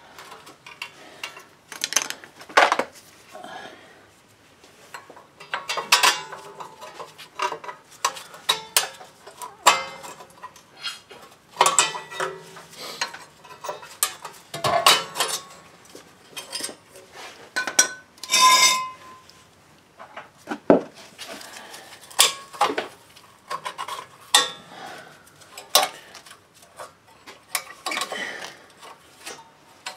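Steel hand tools clinking, tapping and scraping against the rear parking brake shoes and their spring hardware as the shoes are worked off the backing plate. The metallic clicks come at irregular moments, with one brief ringing clink about eighteen seconds in.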